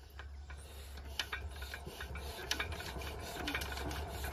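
Stationary diesel pump engine being hand-cranked: a rasping, rubbing turning noise with scattered clicks that slowly grows louder. The owner calls the engine faulty.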